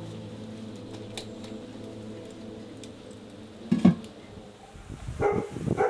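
Soft background music fades out within the first second; then a dog barks, once about four seconds in and several times in quick succession near the end.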